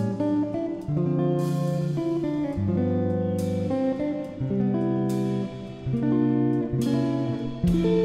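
Background music: a guitar playing chords, with a new chord struck every second or two.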